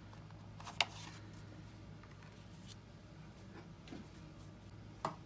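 Quiet handling of craft supplies on a desk: a sharp tap about a second in and another near the end as things are set down, with a few faint rustles between, over a steady low hum.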